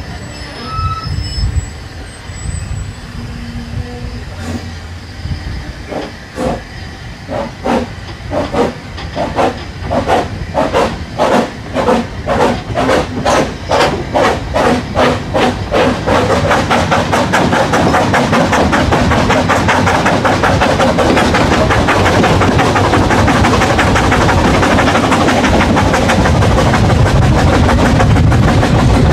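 Narrow-gauge steam locomotive pulling away with its train: slow, distinct exhaust chuffs begin about six seconds in and quicken steadily until they run together into a continuous beat as the train gathers speed, with carriage wheels running on the rails.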